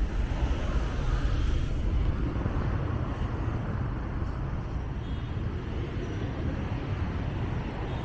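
City street traffic noise: a steady low rumble of road traffic with no distinct separate events.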